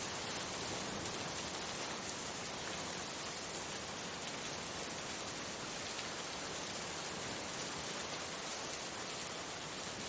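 Heavy rain falling into standing water, a steady even hiss of splashing drops.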